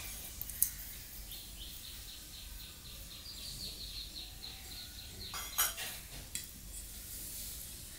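A bird gives a rapid run of short, evenly spaced high chirps, about five a second, for about four seconds. About five and a half seconds in there is a sharp metallic clink of stainless steel tableware, with lighter clinks around it.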